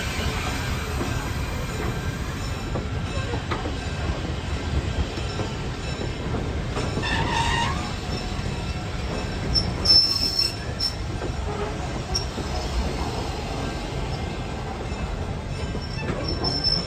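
Steel-wheeled passenger coaches rolling past at low speed: a steady rumble of wheels on rail. Brief wheel squeals come about seven seconds in, again near ten seconds, and once more near the end.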